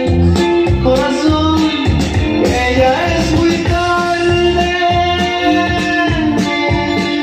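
Loud dance music played over a DJ sound system, with a steady bass beat and sustained melody lines.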